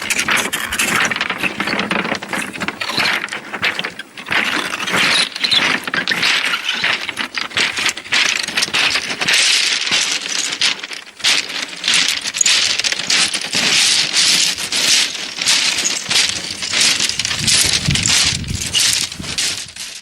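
Pebbles on a shingle beach rattling and clattering as sea waves wash over them and drag back, a dense crackle of countless small clicks that swells and eases with each wave.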